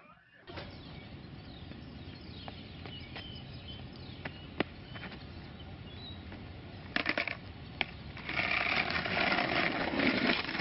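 Skateboard on pavement: several sharp clacks of the board, over a steady outdoor hiss that turns louder and rougher in the last two seconds or so.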